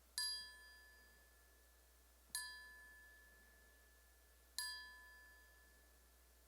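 A bell struck three times, about two seconds apart, each stroke ringing clearly and fading away. It is tolled in memory of a deceased nurse after her final roll call goes unanswered.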